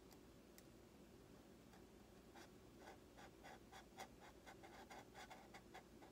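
Hobby knife cutting into the foam of a model jet's wing: a run of faint short scratchy ticks, about four a second, starting about two seconds in.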